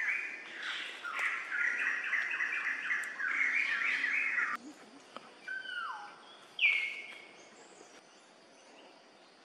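Rapid high chirping calls for about four and a half seconds, cutting off suddenly, followed by two separate falling calls, the second one the loudest.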